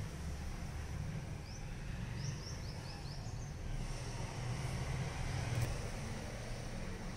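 Outdoor background: a steady low rumble, with a small bird chirping a quick run of short rising notes about two seconds in.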